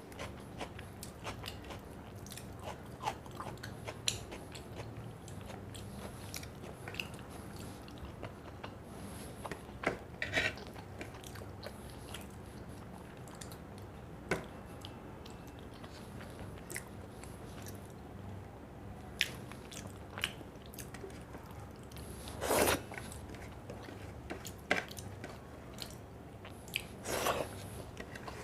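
Close-miked eating: a person chewing, with many small wet mouth clicks and smacks, and two louder bites, a little after 22 seconds and again about 27 seconds in.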